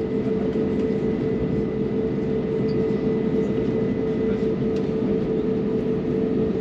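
Steady cabin noise inside an Airbus A321: engines and air systems running with a constant hum over an even rumble.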